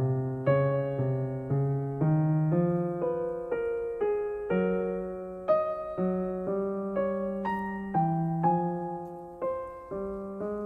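Background music: a keyboard melody played on electric piano, one note or chord struck about every half second and fading before the next.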